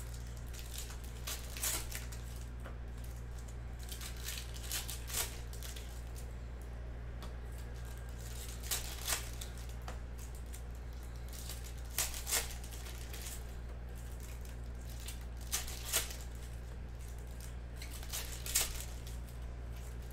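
Foil trading-card pack wrappers being torn open and crinkled, with cards handled: short crinkling rustles, often two close together, every few seconds, over a steady low hum.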